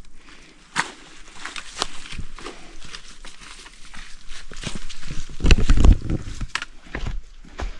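Footsteps of hikers on a slippery, rocky trail: irregular scuffs and clicks of boots on stone and leaves, with one heavier low thud about five and a half seconds in.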